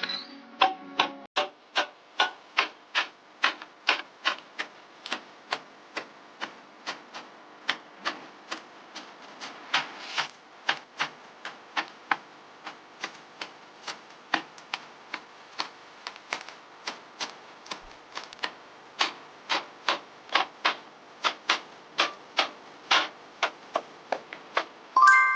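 A long, even series of sharp taps, about two to three a second, over a faint rubbing background.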